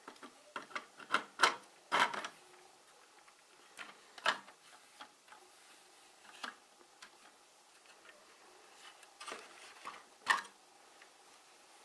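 Plastic building bricks of a Sluban toy rocket-launcher model clicking and tapping as a hand turns and tilts the launcher box. The clicks are irregular: a cluster in the first couple of seconds, a few around four seconds in, and a last sharp one about ten seconds in.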